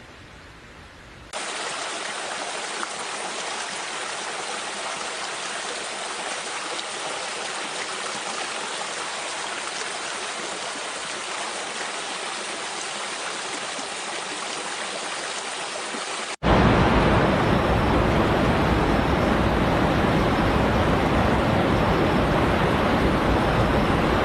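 Running water rushing steadily, starting abruptly about a second in. About two-thirds of the way through it cuts suddenly to a louder, deeper rush of water.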